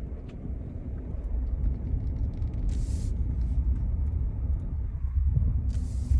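Car driving slowly, a steady low engine and road rumble heard from inside the cabin, with scattered small ticks and two brief hisses.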